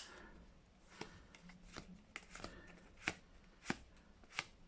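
Magic: The Gathering cards from a freshly opened booster pack being flicked through one at a time: a faint, light snap of card on card about every two-thirds of a second.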